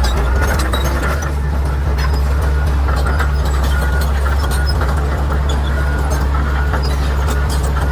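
Bulldozer's diesel engine running steadily under load, a deep even rumble, with frequent short sharp cracks and clanks over it.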